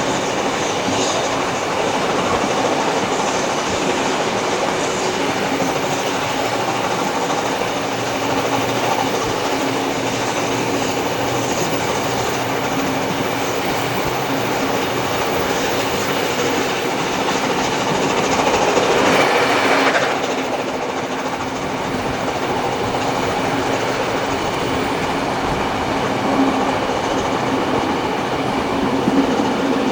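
Passenger train hauled by steam locomotive 3801 running along the line: a steady noise of wheels on the rails, swelling louder for a couple of seconds about two-thirds of the way through.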